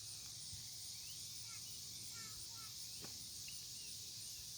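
Steady high-pitched drone of insects in the open air, with a few short, scattered bird chirps and one faint click about three seconds in.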